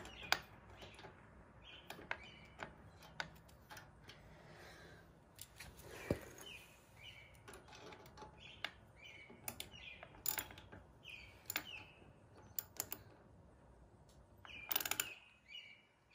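Faint scattered clicks and light metal taps of an Allen key and a motorcycle floorboard being fitted and tightened by hand on its footpeg mount, with a brief louder scrape near the end. Small birds chirp faintly in the background.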